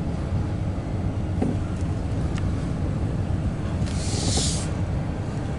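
Steady low rumble of a long double-stack intermodal freight train rolling across a steel girder bridge, with a brief hiss about four seconds in.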